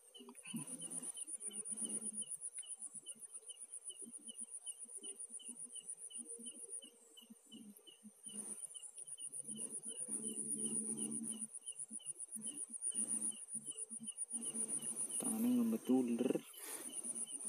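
Night crickets and other insects calling: a continuous high pulsing trill, with a second insect chirping steadily about three times a second. Faint low voices come and go underneath, and a louder voice is heard briefly near the end.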